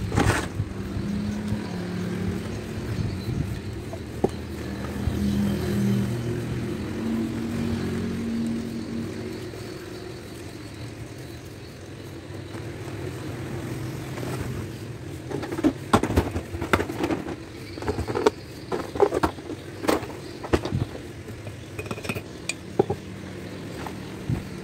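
A low hum like a motor vehicle running in the background through the first half. Then, from past the middle, a run of light, sharp clicks and knocks from handling a hard-shell suitcase and a brush-in-lid glue can.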